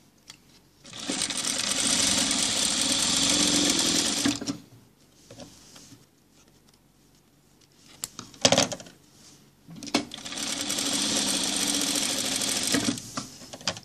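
Industrial sewing machine running in two steady bursts of about three seconds each, stitching the lining of a jacket's welt pocket closed. Between the bursts there are light handling sounds and a sharp knock about eight seconds in.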